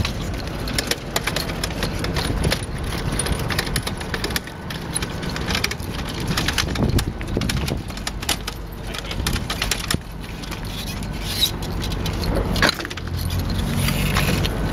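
Hand truck loaded with a large cardboard-boxed fridge rolling over a cobblestone street, its small wheels rattling in a dense, continuous run of little knocks.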